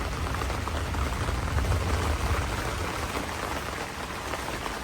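Steady rain falling on a greenhouse: an even patter of many small drops, with a low rumble underneath that eases after about three seconds.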